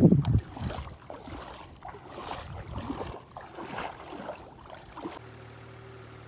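Muddy paddy-field water sloshing and splashing in irregular strokes, with a blast of wind on the microphone at the start. About five seconds in it cuts suddenly to a tractor engine running steadily.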